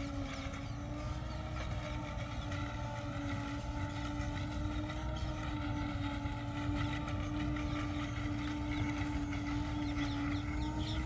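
A New Holland 9010 tractor running a Celikel Challenger 3 corn silage harvester, working steadily. It makes a constant mechanical hum with a steady tone over the engine's low rumble.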